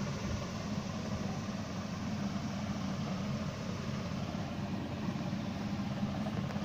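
Steady low hum with an even hiss, unchanging throughout: background machine-like noise.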